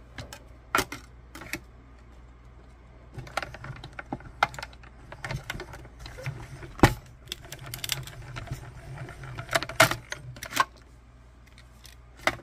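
Manual hand-cranked die-cutting machine with clear acrylic cutting plates: the plates clack as they are set in, then a low rumble while the crank turns and the plate sandwich rolls through the rollers, with scattered clicks and knocks, the sharpest about seven seconds in.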